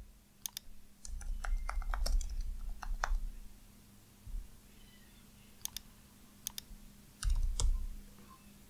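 Typing on a computer keyboard: a quick run of keystrokes over the first three seconds, then a few scattered single clicks near the end, some with a dull low thump underneath.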